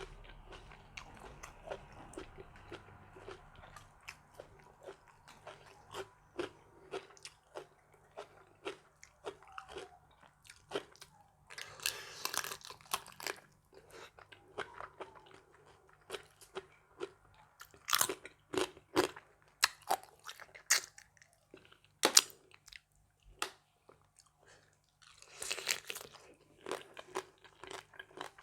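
Close-up eating sounds: a person chewing and biting into a spicy Thai mixed-seafood salad, with wet chewing, sharp crunches and clicks, and a couple of longer crunching bursts.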